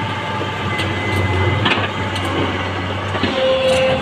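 L&T-Komatsu PC200 hydraulic excavator's diesel engine running steadily as the arm moves and the bucket comes down to the ground. There is a clank about a second and a half in and a brief steady whine near the end.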